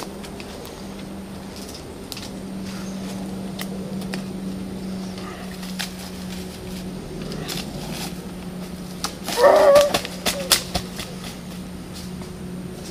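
Twigs snapping and dry leaf litter crunching underfoot as sticks are gathered from a forest floor, with a short, loud call about nine and a half seconds in followed by a few sharp snaps.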